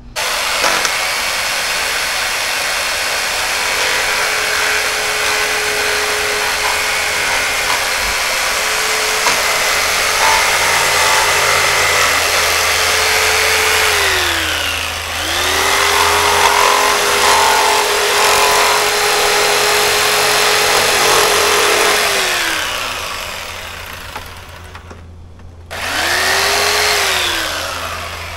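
Jigsaw cutting through a black plastic milk crate. The motor runs steadily with a whine for about fourteen seconds, winds down, starts up again for about seven seconds more, winds down, and makes one short run near the end.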